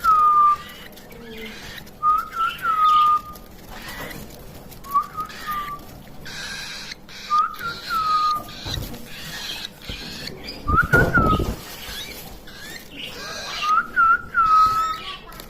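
A short clear whistle, a quick rise then a longer falling note, repeated about six times at roughly two-and-a-half-second intervals. A brief rustling noise comes about eleven seconds in.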